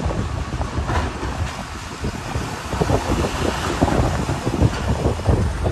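Wind buffeting the microphone in irregular gusts over a low rumble of vehicles.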